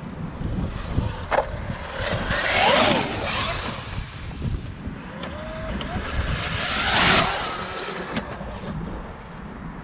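Traxxas UDR radio-controlled truck's brushless motor whining, with its tyres rushing over stony ground, as it passes at full throttle twice: loudest about three seconds in and again about seven seconds in, the whine rising and falling in pitch each time.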